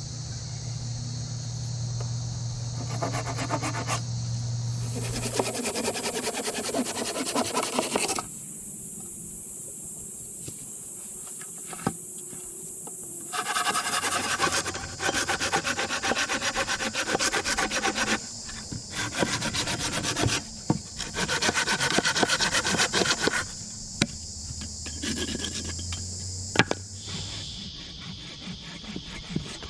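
Hand saw cutting through a piece of timber, in several runs of rapid back-and-forth strokes separated by short pauses.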